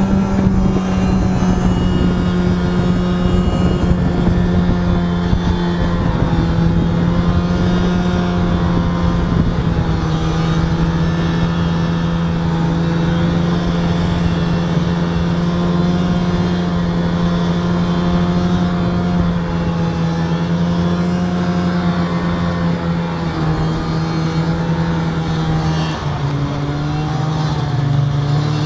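Snowmobile engine running steadily at cruising speed under the rider, its pitch holding nearly level with slight wavering, then dropping a little near the end as the speed eases off.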